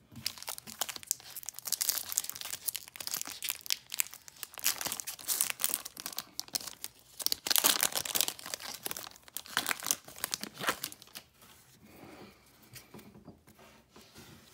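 Foil wrapper of a 2019 Topps Series 1 baseball card pack being crinkled and torn open by hand, a dense crackling rustle that is loudest about eight seconds in and fades to light rustling near the end.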